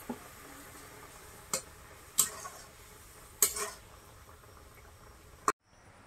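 A metal spoon clinking and knocking against a kadai a handful of times as the curry is stirred, the last knock followed by the sound cutting off abruptly near the end.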